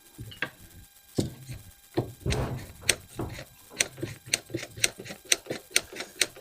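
Metal-on-metal work on an AR-15 handguard as it is being loosened: a few knocks and a short scrape, then from about three seconds in an even ratchet-like clicking, about four clicks a second.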